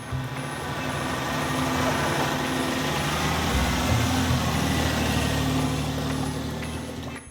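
A motor vehicle running, with engine and road noise over a low bass line.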